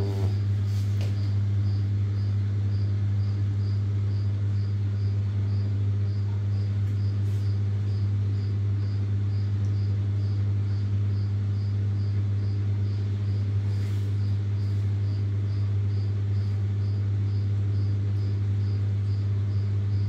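Siemens iQ700 front-loading washing machine running with a steady low hum. A faint high chirp repeats about twice a second throughout.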